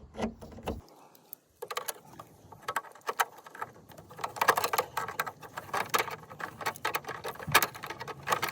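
Hands working the small John Deere tractor's hood latch, a 3D-printed resin 'Easy Open' latch: a run of quick, irregular clicks and knocks with a short pause about a second and a half in.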